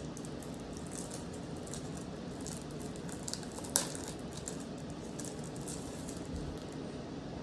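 Plastic crinkling and rustling as a graded card slab is slid out of its plastic sleeve, with one sharp click a little under four seconds in, over a steady background hiss.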